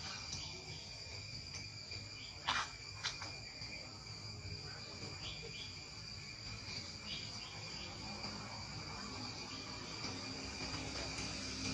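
Insects droning in a steady high-pitched chorus, with two sharp clicks about half a second apart a couple of seconds in.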